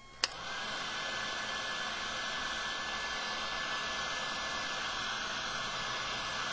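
A handheld heat gun switches on with a click, then runs with a steady rushing blast of air and a thin, high motor whine.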